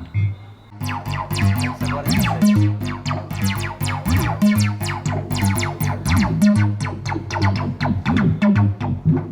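Korg Minilogue XD synthesizer playing a sequenced pattern: a pulsing bass line under bright plucked notes. The full pattern comes in about a second in.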